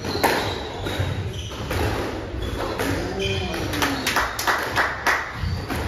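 A squash ball is struck by a racket and hits the court walls in a sharp loud crack just after the start. Short squeaks of court shoes on the wooden floor follow, then a run of quicker taps and clicks about four to five seconds in.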